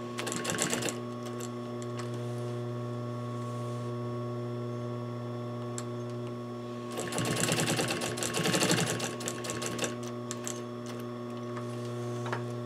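Industrial sewing machine stitching a seam through folded fabric and batting in two runs of rapid, even needle strokes: a short burst right at the start and a longer run of about three seconds past the middle, with a steady hum in between.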